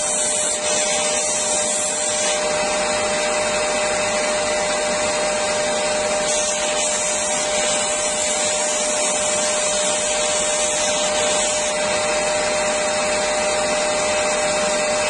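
Parkside PBTS 370 B2 belt and disc sander's induction motor running steadily while a piece of fir wood is pressed against its 80-grit sanding disc to round the corners, mixed with a vacuum cleaner running on the dust port. A steady tone sits under the even hiss of motor, vacuum and sanding.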